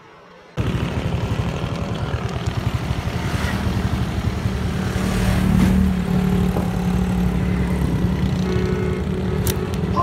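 An engine running steadily, a low rumble with a held hum, starting abruptly about half a second in. A single sharp click near the end.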